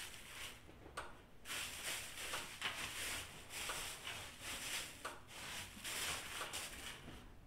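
Hand pushing and smoothing pine shavings in a galvanized steel stock tank: a run of soft rustling swishes, about one or two a second, with a small click about a second in.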